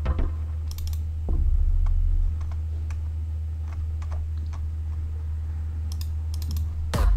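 Scattered clicks of a computer keyboard and mouse while scrolling through synth presets, over a steady low hum. A synth sound starts up right at the end.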